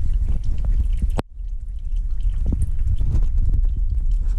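Transmission fluid dripping from the leaking 4L60E servo bore, over a steady low rumble with scattered sharp clicks of metal parts and tools being handled. The sound drops out abruptly for a moment about a second in, then carries on.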